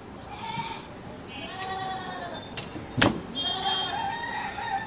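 Goats bleating: several drawn-out, wavering calls, one after another. A single sharp knock about three seconds in.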